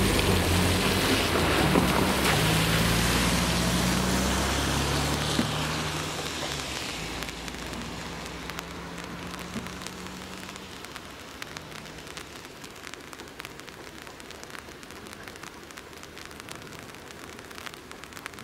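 Cars pull away over wet asphalt, their tyres hissing and their engines rising in pitch through the gears, fading out over the first six or seven seconds. Then steady rain falls, with scattered drops ticking.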